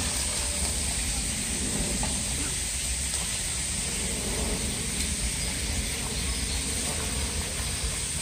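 Shallow water running over a rock shelf: a steady, even hiss with a low rumble underneath.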